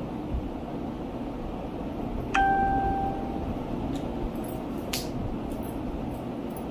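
Light clicks from handling a bendable phone tripod, with one bright chime-like ring about two and a half seconds in that fades over about a second, over steady background noise.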